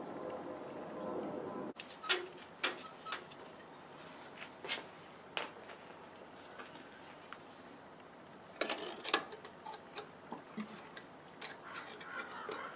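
Motor oil pouring through a funnel into a Ford Model A engine's distributor opening, a steady pour that stops abruptly about two seconds in. Then scattered light clicks and taps, with more of them near the end as an oil can's spout is worked into the spark plug holes to oil the cylinders.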